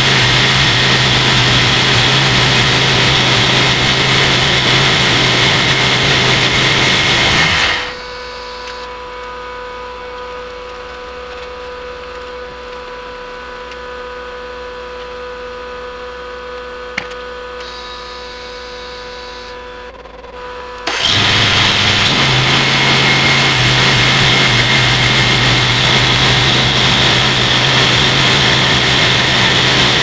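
Homemade band sawmill running loud and steady as its blade saws through a walnut burl log. About eight seconds in the sound drops abruptly to a much quieter, even hum with a single click partway through. Some thirteen seconds later the loud sawing noise returns just as suddenly.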